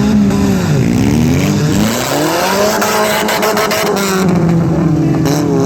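Derby car engines revving, several at once, their pitch rising and falling, with a quick run of sharp knocks about halfway through.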